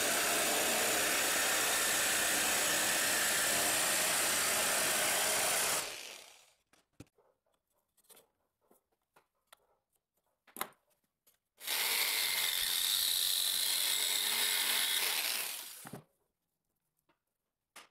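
Jigsaw with a metal-cutting blade running as it cuts a sheet of galvanized steel, then stopping about six seconds in. A few light knocks of handling follow, then the saw runs again for about four seconds as it cuts through a chrome closet rod.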